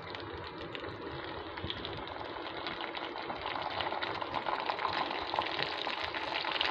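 Melted butter sizzling and crackling in a hot pan as tomato ketchup is added, growing louder over the last few seconds.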